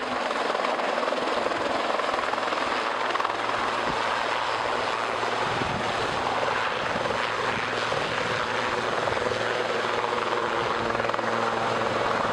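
Rescue helicopter's rotors and engines running steadily as it descends to land on the highway; the low hum grows stronger about halfway through as it nears the ground.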